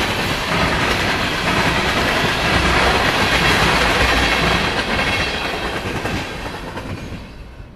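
Ethanol tank cars of a freight train rolling past, their steel wheels running on the rails; the sound fades near the end as the last cars go by.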